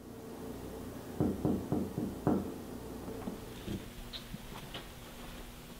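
Knocking on a panelled door: four quick raps about a second in, followed by soft footsteps approaching, over a steady low hum.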